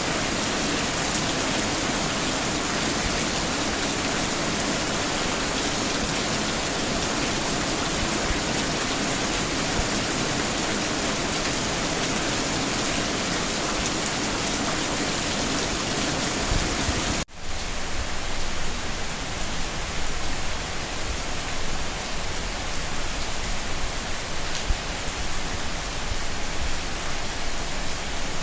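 Steady rain falling. About 17 seconds in it cuts off abruptly and comes back as a coarser hiss with more low rumble.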